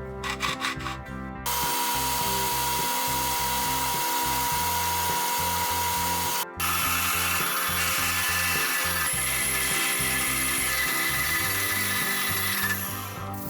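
A power tool runs steadily for about five seconds, stops for a moment, then runs again for about six seconds and fades near the end; a few clicks come before the first run. Background music plays underneath.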